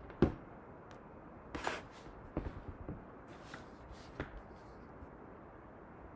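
Faint handling noises: a sharp knock about a quarter second in, a short rustle around a second and a half in, then a few light clicks and taps.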